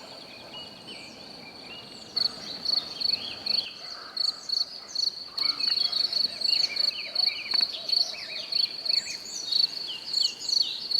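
Insects chirping in a high, even trill that turns into regular pulses about twice a second, with many short high chirps and whistles over it, more of them from about five seconds in.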